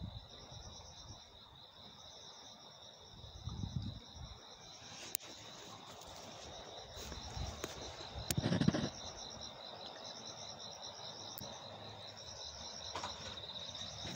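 Insects singing in summer: a steady high trill with a second, pulsing trill above it, and a few soft low thumps, the loudest about halfway through.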